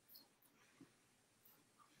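Near silence: faint room tone with a few very faint, brief clicks.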